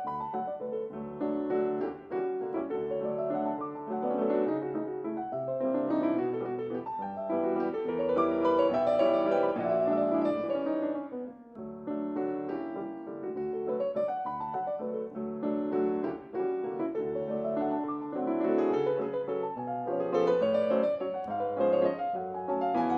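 Solo piano music, a flowing melody over accompanying chords, with a short pause between phrases about halfway through.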